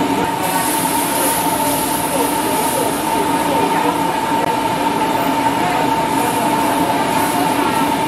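Steady roar of a gas burner under a large steel wok, with a constant tone running through it, as a metal wok spatula stirs the simmering sesame-oil sauce.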